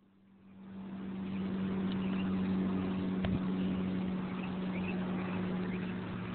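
A steady motor hum at one even pitch, swelling in over the first second and then holding level, with a single short click about three seconds in.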